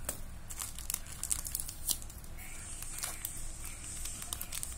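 Thin plastic bait packet crinkling and rustling in the hand as it is squeezed to push the paste bait out, with irregular small crackles.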